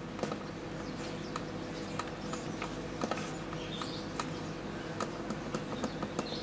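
Small push-buttons on an LCD monitor's front bezel clicking at irregular intervals as they are pressed to step through the on-screen menu, over a steady low hum.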